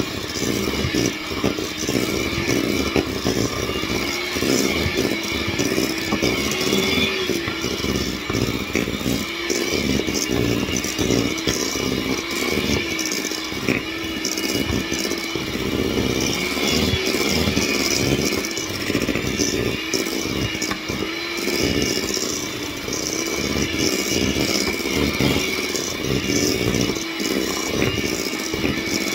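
Electric hand mixer running steadily, its beaters creaming butter and sugar in a stainless steel bowl. The motor hum wavers slightly in pitch as the load changes, with frequent small knocks of the beaters against the bowl.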